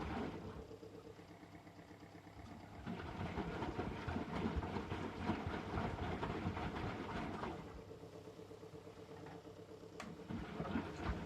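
Eurotech EW 450 front-loading washing machine turning its drum through wet laundry and water, with motor hum and sloshing. The drum runs for about four to five seconds, then pauses for two to three seconds before turning again.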